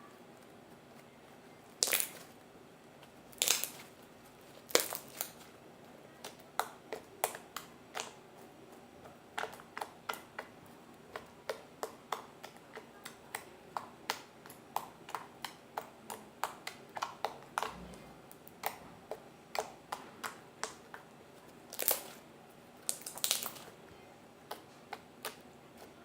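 Homemade glue slime being squeezed and pressed by hand, letting out a string of sharp clicks and little bubble pops, about one or two a second, with a few louder pops among them.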